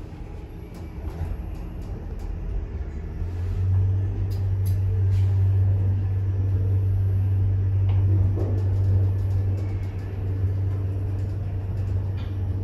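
Hydraulic lift heard from inside the moving car: a steady low hum from the hydraulic drive that swells about three and a half seconds in and then holds, with a few faint clicks over it.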